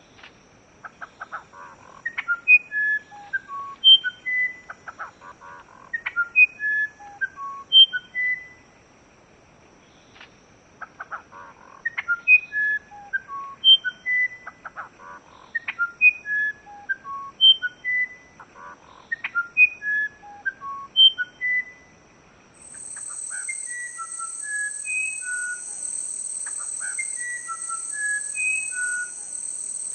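A songbird singing repeated phrases of short, clear whistled notes that step up and down in pitch, each phrase lasting a couple of seconds, with a short pause around the middle. Near the end a steady high-pitched buzz joins in under the song.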